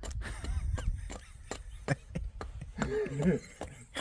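Sharp taps repeating about three times a second, with a person's voice speaking briefly near the end.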